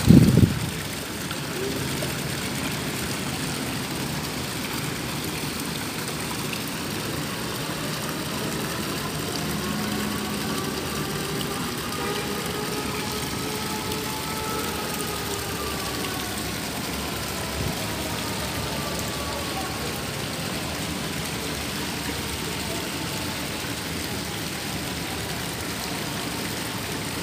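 A loud knock at the very start, then steady background noise with a faint distant engine whose pitch slowly rises and then falls as it passes.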